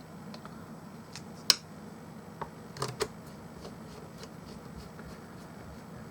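Scattered small clicks and taps from handling a mini Bluetooth speaker's plastic casing and its screws during reassembly, the sharpest about a second and a half in and a few more close together about three seconds in, over a low steady hum.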